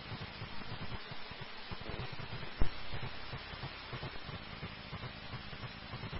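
Police radio scanner static between transmissions: a steady hiss with an uneven low hum, and one sharp click about two and a half seconds in.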